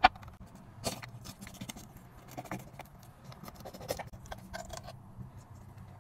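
Knife cutting around the crisp baked dough lid of a pot somsa, a run of crunchy crackles and scrapes from the crust. A single sharp tap right at the start is the loudest sound.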